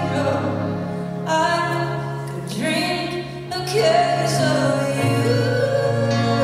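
A woman singing live with a band in a large hall, her voice holding and bending long notes over sustained low accompaniment.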